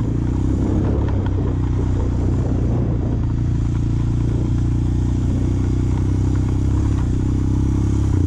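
ATV engine running steadily as it is ridden along, its pitch holding even with no revving.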